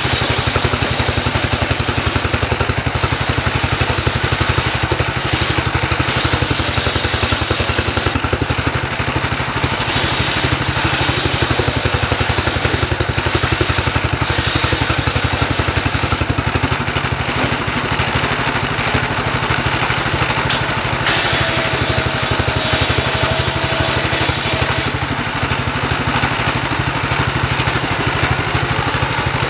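Single-cylinder stationary diesel engine running steadily under load as it drives a homemade circular-saw bench by belt. The blade hisses through a hardwood trembesi log, ripping it into planks.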